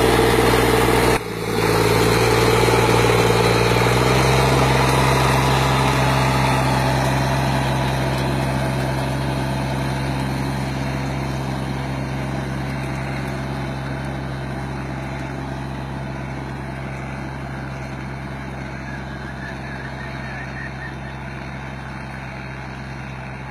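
Sonalika mini tractor's diesel engine running steadily while it pulls a tillage implement through a ploughed field. There is a short dip about a second in and a small rise in engine pitch a few seconds in. After that the sound fades gradually as the tractor moves away.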